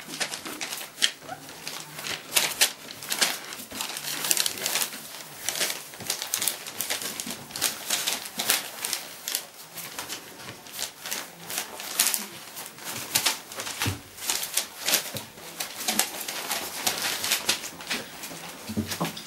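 Three-and-a-half-week-old Dalmatian puppies playing: a busy, irregular run of short scuffles, clicks and crinkles as they scramble over the blanket and newspaper, mixed with soft puppy grunts and squeaks.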